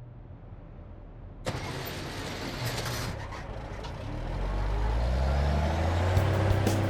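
Cartoon vehicle engine sound effect: a low rumble that grows louder, joined by a wash of noise about a second and a half in, then a heavy engine note rising slowly in pitch as it revs up. Musical notes come in near the end.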